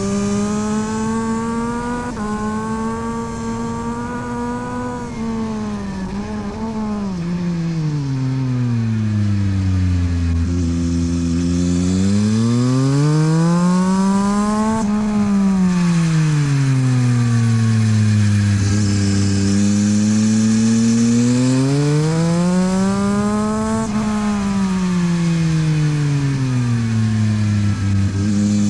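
Yamaha MT-09 SP's three-cylinder engine through a LeoVince exhaust, ridden hard on track. The engine note climbs and drops several times as the bike accelerates and slows, with the high points about halfway through and again near the end.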